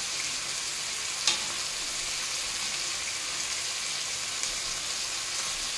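Chicken breast strips frying in oil in a pan, a steady sizzle, with one sharp click about a second in.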